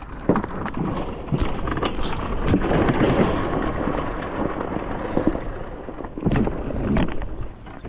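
Yamaha Blaster two-stroke quad being kicked over with its ignition switched off, so the engine doesn't fire: irregular knocks and clunks from the kick-starter over a rough rumble of wind on the microphone.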